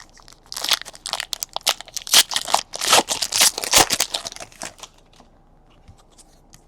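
Foil trading-card pack wrappers crinkling and rustling in the hands for about four seconds, then only faint handling clicks.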